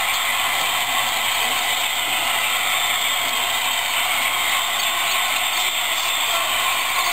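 HO scale model trains running on the layout's track, among them a freight headed by two steam locomotives: a steady mechanical running sound of motors and wheels on the rails.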